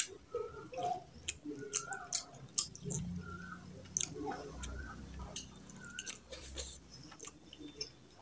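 Close-miked chewing, wet mouth smacks and squishing of a person eating rice and fish curry by hand, with irregular sharp clicks throughout and a low hum between about three and seven seconds in.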